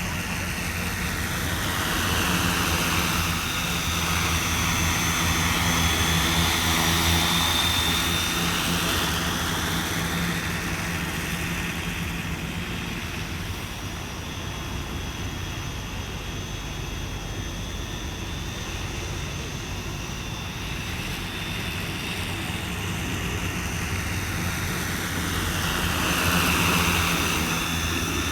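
Agricultural spraying drone's propellers and motors buzzing in flight. It grows louder with a sweeping pitch as it comes close a few seconds in, fades back, then comes close again near the end.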